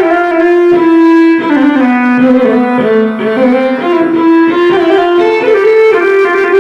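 Korg TR keyboard playing a bowed-string, violin-like Indian tone patch: a melody of held notes that glide in pitch from one to the next, with a slide down about a second and a half in.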